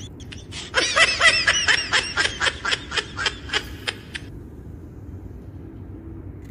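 High-pitched laughter, a rapid string of 'ha-ha' syllables about four a second that fades over roughly three seconds and cuts off abruptly.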